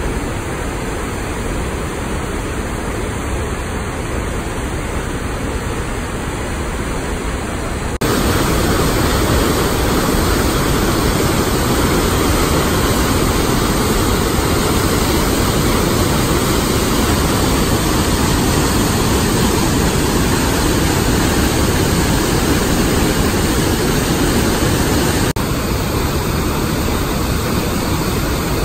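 Rushing white water of a mountain river pouring over rapids and a small falls: a steady, loud roar, louder from about eight seconds in.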